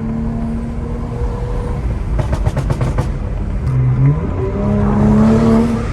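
BMW E92 engine pulling under acceleration on a test drive. The revs climb and step through a gear change about four seconds in, with a brief run of rapid clicks a little earlier.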